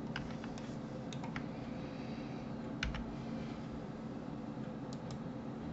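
Sparse clicks of a computer keyboard and mouse, scattered taps with a louder knock about three seconds in, over a steady low hum.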